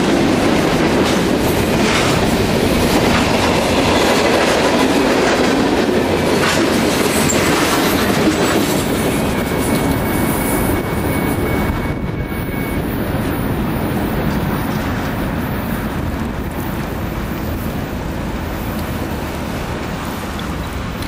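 Freight train cars rolling past over a grade crossing, a loud rumble with wheels clacking over the rail joints. About twelve seconds in, the sound drops away as the last cars pass, leaving a fainter steady noise of road traffic.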